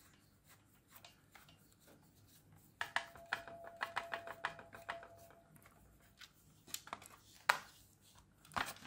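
Small screw being turned out of a plastic carbon monoxide alarm case with a screwdriver: a quick run of faint clicks with a thin squeak under it about three seconds in, then a few separate light taps near the end.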